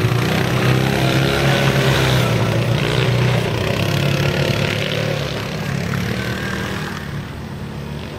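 Yamaha Rhino 660 UTV's single-cylinder engine running under throttle as it drives off over sand, its sound fading steadily as it pulls away.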